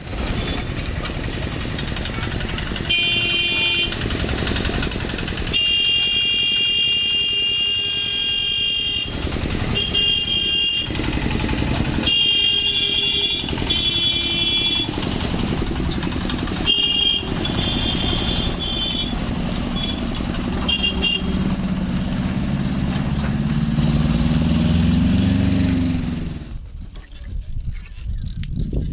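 Road traffic at a railway level crossing, with motorcycles and other vehicles running and high-pitched vehicle horns honking in repeated short blasts. Near the end a low engine note rises steadily in pitch for a few seconds, then cuts off suddenly.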